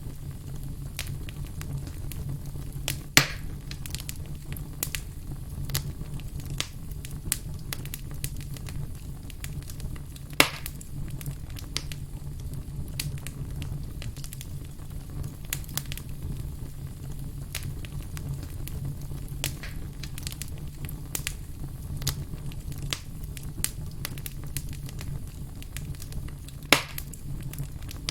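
Campfire crackling: frequent small snaps and ticks over a steady low rumble, with three louder pops spread through it.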